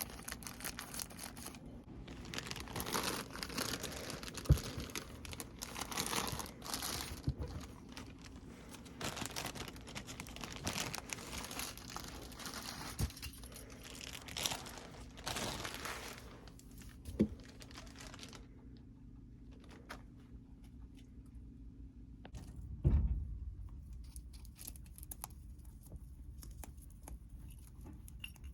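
Crinkling and rustling, like paper, packaging or dry hay being handled, with a few sharp knocks, through most of the stretch. After about two-thirds of the way it drops to fainter scattered clicks, with one dull thump near the end.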